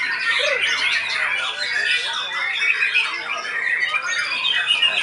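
White-rumped shama (murai batu) singing a dense, unbroken run of rapid chirps, trills and gliding whistles, the fast volley of loud notes that Indonesian contest fans call "hujan tembakan" ("rain of shots"). Other songbirds sing over and under it.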